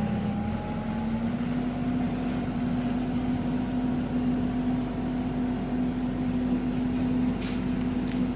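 Kubota U50 mini excavator's diesel engine running at a steady speed, its pitch rising slightly about a second in and then holding. A couple of faint clicks near the end.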